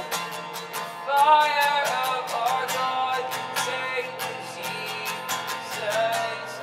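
Live worship music: a steady strummed guitar rhythm, with a voice entering about a second in and holding a long wordless sung line that slides between notes.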